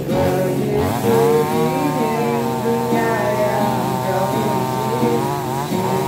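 Two-stroke chainsaw running under load as it cuts through a log, its engine pitch rising and dipping as the chain bites.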